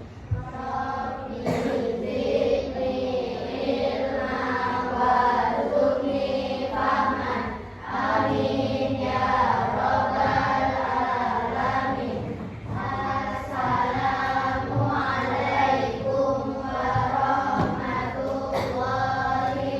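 A class of schoolchildren reciting the before-lesson prayer aloud together in a sing-song chant, in long phrases with short pauses between them.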